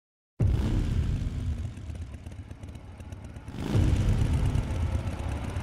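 Motorcycle engines rumbling. The sound starts abruptly about half a second in, eases off, then swells again past the middle.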